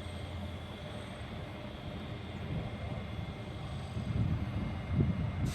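Electric commuter train running on the line: a steady low rumble that grows louder over the last second or so.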